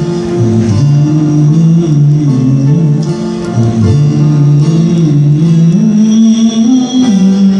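Live acoustic music: a guitar playing under a melody line that moves in long held notes.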